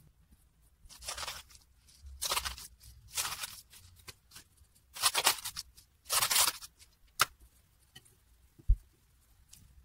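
Gritty potting mix being tipped from a small pot into a terracotta pot and pressed down by hand: five short crunchy rustles about a second apart, then a sharp click and a dull thump near the end.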